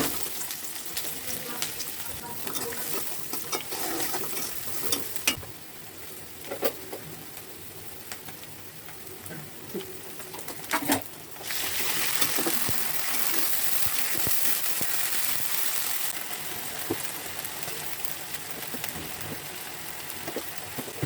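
Food sizzling in hot oil in a pan, stirred, with a few sharp knocks of a utensil against the pan. About eleven seconds in the sizzling gets louder and stays so.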